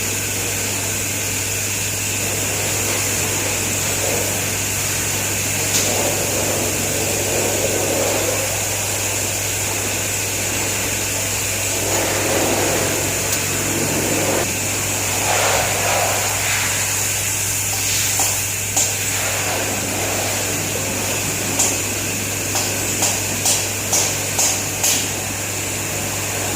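Hand tools working on the cylinder head nuts of a Royal Enfield 650 twin over a steady low hum, with scattered metal scrapes and knocks. Near the end there is a run of about six sharp metallic clicks, roughly half a second apart.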